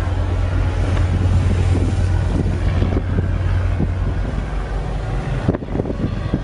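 Wind rushing over the microphone on the deck of a ship at sea, over the steady low drone of the vessel's engine. The level dips briefly about five and a half seconds in.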